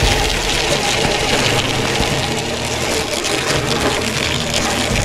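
Traxxas TRX-4 RC crawler on rubber track units running through snow: its electric motor and drivetrain whirring steadily, with the tracks clattering.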